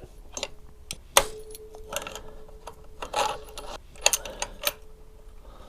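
Small metal parts clinking as a big washer and bolt are handled and fitted. There are two sharp metallic knocks, about a second in and about four seconds in, each leaving a short ringing tone, with lighter clinks and rustling between.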